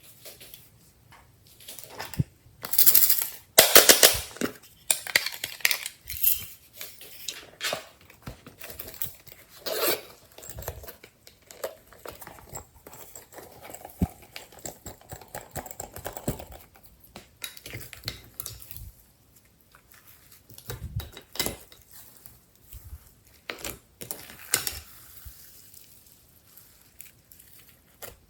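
Slime being handled and mixed by hand, with a run of sticky clicks, pops and crackles. There are louder crackly bursts about three to four seconds in and again near ten seconds.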